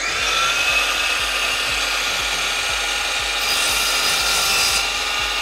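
Festool SYMC 70 cordless mitre saw running at full speed with a steady whine, having just spun up. About three and a half seconds in, the blade cuts through a wooden moulding, adding a brighter hiss that lasts just over a second.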